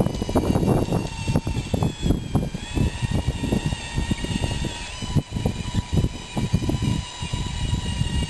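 Radio-controlled scale bulldozer crawling over gravel: a steady motor whine that changes pitch a few times as it speeds up and slows, over a continuous clatter of its tracks and crunching stones.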